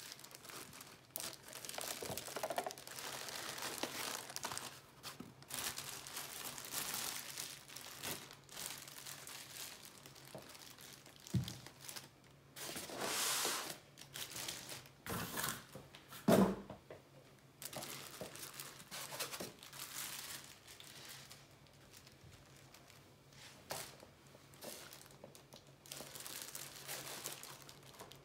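Clear plastic bags crinkling and rustling in irregular bursts as plastic-wrapped statue parts are handled in a styrofoam packing tray, with a couple of soft knocks about 11 and 16 seconds in.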